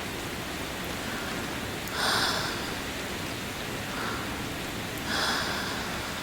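Steady rain hiss with three soft, close mouth sounds over it, about two, four and five seconds in: kisses, each a faint smack followed by a breathy swish, the middle one quieter.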